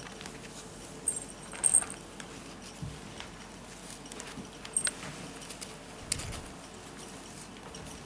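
Ferret kits moving about on a blanket among plastic balls, with soft scrabbling and small clicks, and short high-pitched squeaks about a second in, loudest just before two seconds, and again near five seconds.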